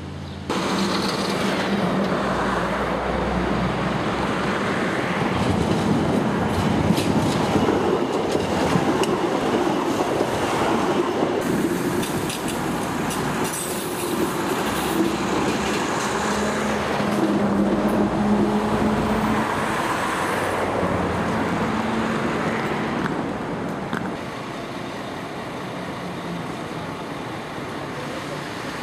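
Stuttgart Stadtbahn DT8 light-rail car running past over junction trackwork, its wheels clattering over the points, with a steady low tone at times. About four seconds before the end it gives way to quieter background noise.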